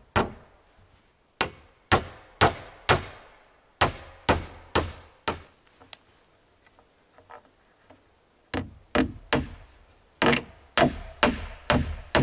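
Hammer driving nails into wooden wall boards: sharp strikes about two a second, in two runs with a pause of a couple of seconds between them.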